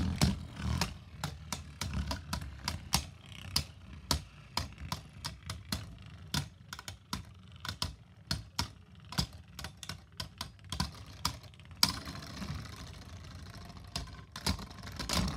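Two Beyblade spinning tops clashing in a plastic stadium: rapid, irregular clacks as they knock into each other and the stadium walls. In the last few seconds the hits thin out into a steadier scraping whir as the tops spin against each other.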